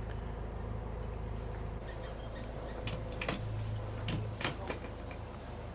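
Low, steady hum of a catamaran's engines running slowly while it turns into its berth, shifting a little about two seconds in and again about four seconds in. A few light knocks and clicks come near the middle.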